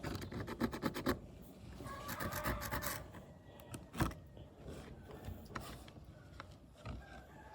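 Hand work on wood: a quick run of rasping, rubbing strokes, then scraping, and two sharp knocks a few seconds apart.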